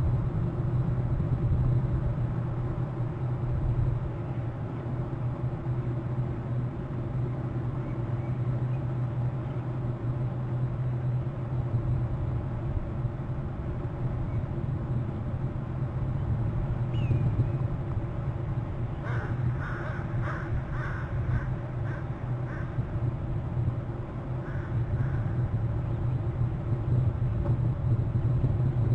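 A crow cawing: a quick run of about eight caws, then a couple more, over a steady low hum.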